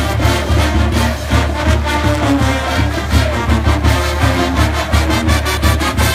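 Marching band brass, with sousaphones, and drums playing a lively tune with a steady beat.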